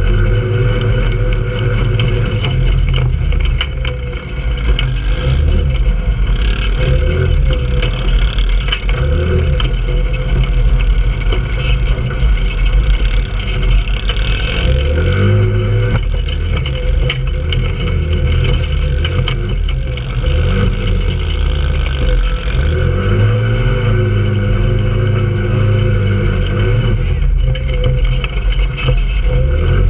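Trailmaster 150 go-kart's 150cc four-stroke engine running and revving up and down with the throttle as the kart drives over rough dirt, its pitch holding steady for a few seconds near the middle and again later on.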